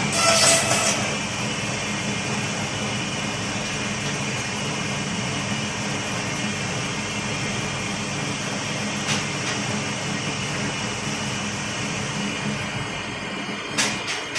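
Bamboo slicer-planer machine running with a steady motor hum and hiss, louder for about the first second. Near the end a run of sharp, evenly spaced taps begins.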